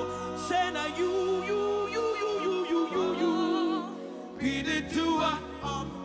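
Live gospel worship music: a woman sings with wavering vibrato into a microphone, backed by singers and sustained band accompaniment.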